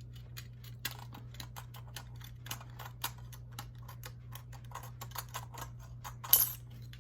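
Large scissors slowly cutting thin metal diamond plate: a run of small, irregular clicks and snips, several a second, with one louder snip about six seconds in.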